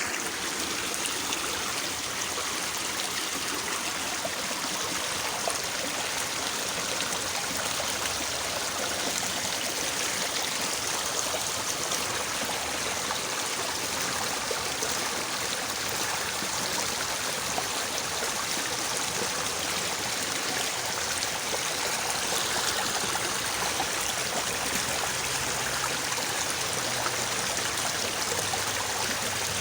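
Shallow, fairly swift small river babbling and splashing over its bed, a steady, unbroken rush of water.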